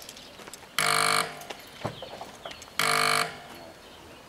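AŽD 71 level crossing's audible warning signal sounding for an approaching train. It gives single pitched strokes about every two seconds, each lasting about half a second and fading off, twice here.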